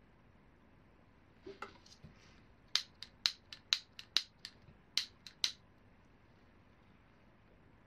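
About a dozen short, sharp, light clicks, three or four a second for nearly three seconds, from hands working at the bowl of a briar tobacco pipe, after a brief soft rustle of handling.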